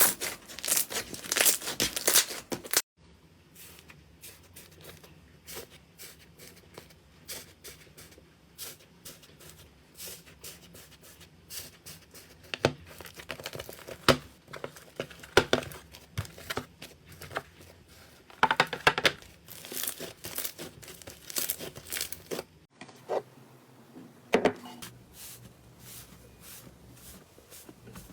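Slime being squeezed, stretched and pressed by hand, giving sticky crackling and clicking. The crackles are dense and loud for the first three seconds, then sparser and quieter with occasional louder bursts; the sound changes abruptly about three seconds in and again near the end.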